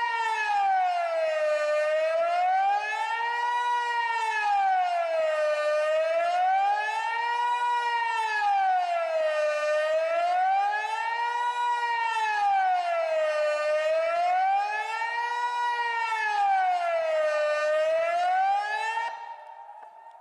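Kockum Sonics Delta-8 AT electronic civil-defence siren sounding the Swiss 'General Alarm' signal: a steady wail rising and falling about every four seconds. It cuts off near the end.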